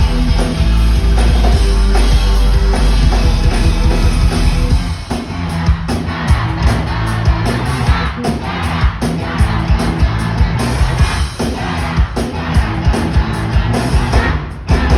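A live band plays loudly with singing and crowd voices in the hall. About five seconds in, the heavy full-band bass drops away, leaving a steady beat of about two hits a second under the singing and crowd.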